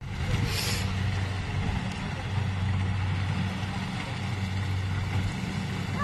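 Corn harvesting machine's engine running steadily in the distance: an even low hum. A brief hiss about half a second in.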